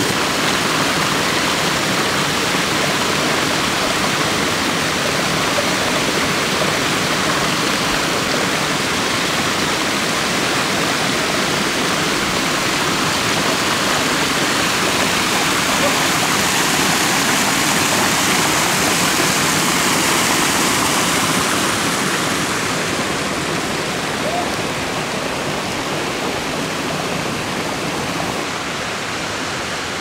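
Waterfall rushing steadily into a pool, a dense even rush of water that swells a little around the middle and eases slightly near the end.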